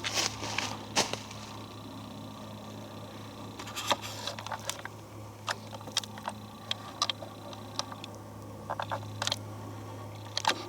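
Footsteps in dry forest leaves and twigs: scattered crackles and snaps, some in quick clusters, over a steady low hum.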